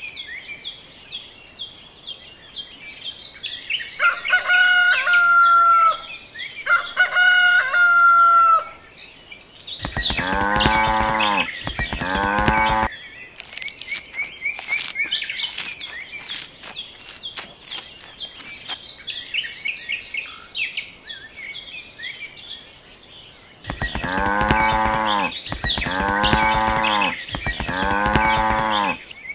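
Birds chirping and tweeting throughout. Two long rooster crows come a few seconds in, then farm-animal calls: two drawn-out calls around ten seconds in and three more near the end.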